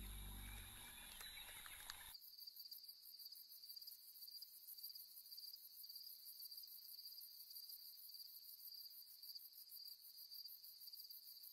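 Crickets chirping at night: a faint, steady, high-pitched trill that comes in abruptly about two seconds in, replacing the fading end of a low musical passage.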